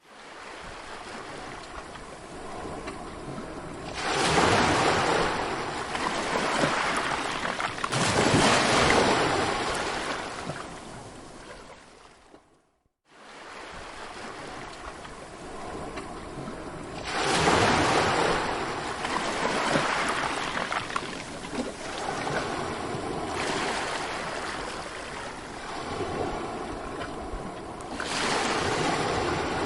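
Sea waves breaking and washing in: a steady rush of surf that swells louder each time a wave breaks, several times over. Near the middle the sound cuts out to silence for about half a second, then returns.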